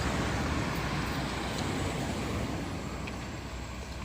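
Heavy vehicle engine running: a steady noise, loudest near the start and slowly fading.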